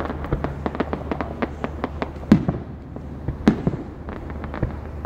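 Fireworks and firecrackers going off: a rapid, irregular string of sharp pops and cracks, with two louder bangs about two and a half and three and a half seconds in.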